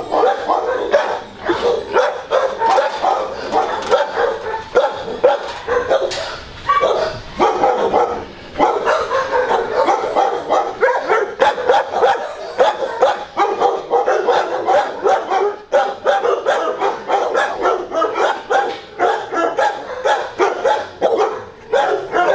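Several shelter dogs in kennel runs barking at once, a continuous din of overlapping barks with hardly a pause.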